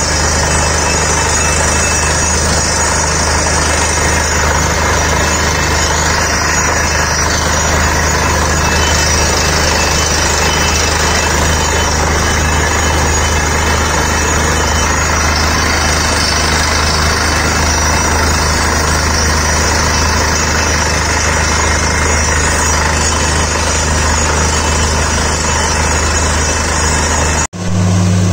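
Truck-mounted borewell drilling rig running while drilling: a loud, steady low engine and compressor drone with the rush of air blasting rock dust out of the borehole. Near the end the sound drops out for a moment and comes back as a steadier, lower engine hum.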